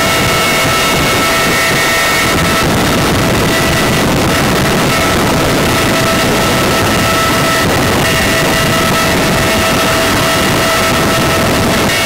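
CH-53E Super Stallion helicopter heard from inside the cabin at an open hatch while hovering: its three turbine engines and rotor make a loud, steady rushing noise with a steady whine over it.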